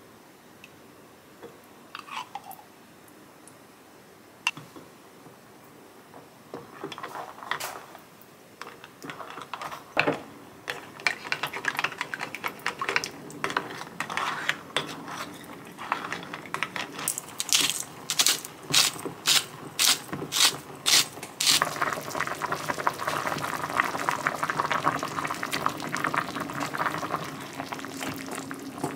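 Kitchen clatter: a few light knocks, then a run of about eight sharp knocks roughly two a second, followed from about two-thirds of the way in by water running steadily.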